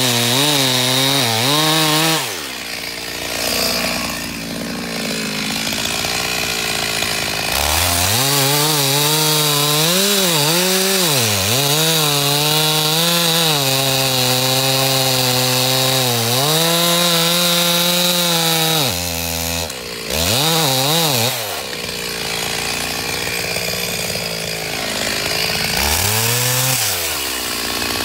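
Two-stroke chainsaw cutting into a large tree trunk to fell it. The engine runs at full throttle, its pitch sagging and recovering as the chain bogs in the wood, and drops to lower revs a few times between cuts.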